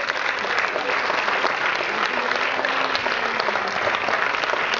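Audience applauding steadily, a dense patter of many hands clapping, with a faint voice heard under it about two seconds in.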